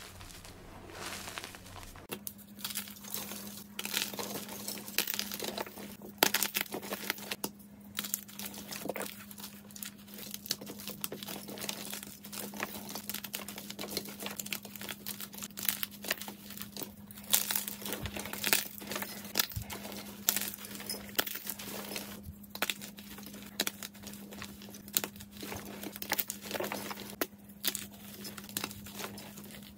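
Hands crushing and crumbling blocks of white gym chalk: a dense run of crunching and crumbling with sharp cracks as pieces snap off and powder is squeezed in the fist. About two seconds in, it changes from squeezing loose chalk powder to breaking the blocks, over a faint steady hum.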